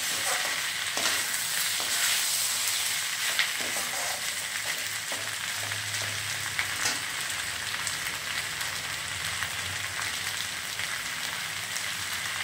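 Fried cauliflower pieces, onion and capsicum sizzling in a hot stainless steel kadai while being stirred with a metal ladle, which scrapes and clicks against the pan now and then.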